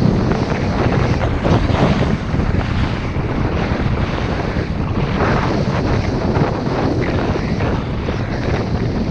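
Wind rushing over the microphone, with skis hissing and scraping over snow on a downhill run.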